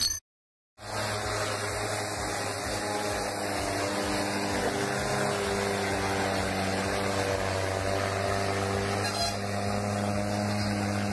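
Tractor's diesel engine running steadily under heavy load, pulling two overloaded sugarcane trailers with its front wheels lifted off the road. A brief glitchy electronic burst sounds at the very start.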